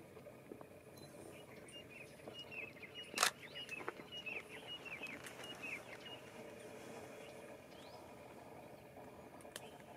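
Small birds chirping in a quick series of short, falling calls through the middle of the stretch, over a steady outdoor background hiss. A single sharp click about three seconds in is the loudest sound, with a fainter click near the end.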